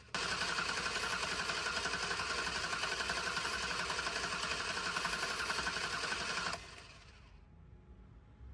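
Ford Taurus engine cranking on its starter with the spark plugs out for a compression test, a steady rhythmic churn that runs for about six and a half seconds and then stops.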